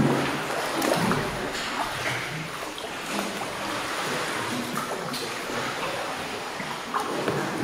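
Sea water splashing and washing against a paddled canoe, with irregular louder splashes over a continuous rush of water.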